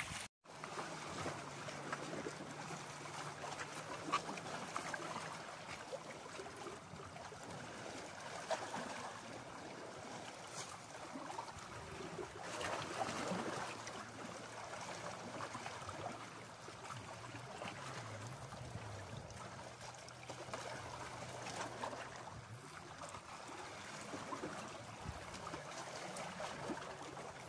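Small sea waves lapping and trickling against shoreline rocks, a steady, fairly quiet watery wash with small irregular splashes. A faint low hum sits underneath at times.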